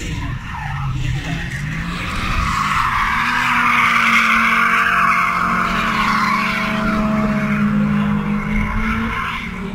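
Two drift cars sliding sideways through a corner in a tandem battle: loud tyre squeal that builds from about two seconds in, peaks midway and fades near the end, over the steady note of their engines held at high revs.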